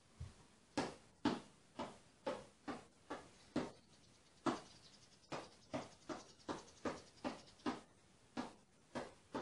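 Light, repeated slaps of a hand brushing the side of a basketball spinning on a fingertip, about two a second, to keep up its spin.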